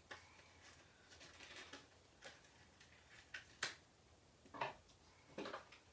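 Near silence broken by a few faint, short clicks and rustles of small gift items and packaging being handled, the clearest about halfway through.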